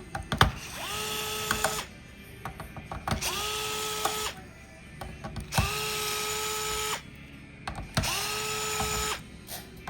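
Small electric screwdriver backing out screws: four short runs of a motor whine that rises and then holds steady, about every two and a half seconds, with sharp clicks and taps between them as the bit is set on each screw.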